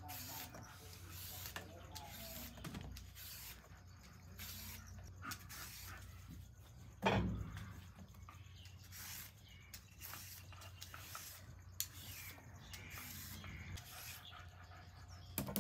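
Hand-held julienne peeler scraping down a raw carrot in quick, short strokes, shaving it into thin strips. One heavier thump about seven seconds in.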